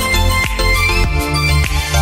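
Instrumental background music with a steady beat and a held bass line.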